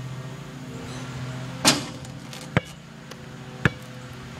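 Basketball shot on asphalt: a loud knock of the ball hitting the hoop about a second and a half in, then two sharp bounces of the ball on the pavement about a second apart.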